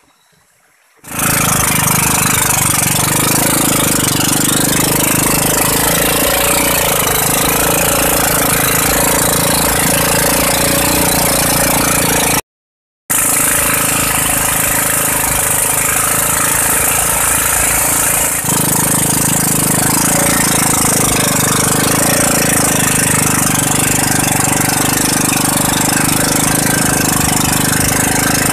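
A boat's outboard engine running steadily and loud, close by, as the boat travels upriver; it comes in abruptly about a second in, drops out for half a second about halfway, and its low rumble grows stronger about two-thirds through.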